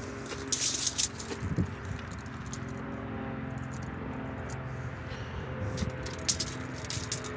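Steel tape measure rattling and clicking as it is handled and laid across a log's end, in two short clusters, over a steady low hum.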